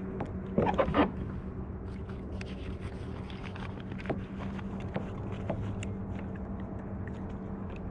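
Steady low hum of a boat motor running on the water, with scattered small clicks and splashes and a brief louder patch about a second in.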